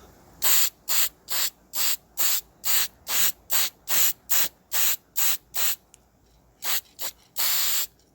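Paint being sprayed in short, rhythmic bursts, about two and a half hisses a second, as red top coat goes onto engine parts. After a pause of about a second come two quick bursts and then one longer spray near the end.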